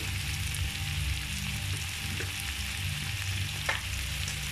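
Prawns and sambal belacan sizzling in a hot wok as freshly added mustard green stems start to fry, with a steady low hum underneath. A single light tap of the metal spatula comes about three and a half seconds in.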